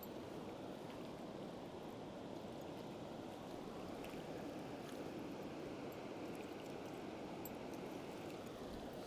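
Shallow mountain river rushing steadily over rocks and gravel, a constant wash of running water.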